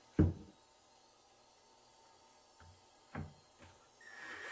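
A sharp knock on wood, then a few lighter taps, and near the end a cordless drill-driver starts up with a steady whine as it drives a screw through the drawer box into the drawer front.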